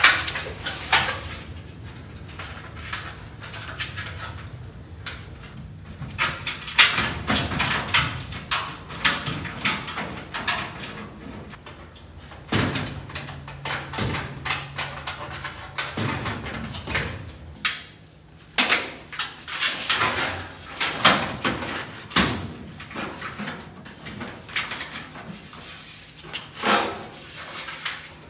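Irregular metallic clanks, knocks and rattles of steel body panels and hardware being handled and fitted to a VW Beetle body, with louder clusters of knocks scattered throughout.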